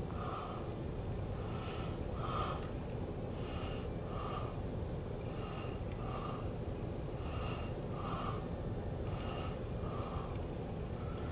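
A short higher-pitched sound repeating about once a second over a steady low rumble.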